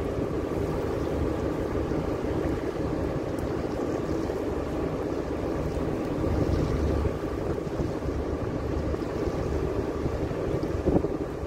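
A ship's engines running steadily during berthing, with strong wind buffeting the microphone. A short knock sounds near the end.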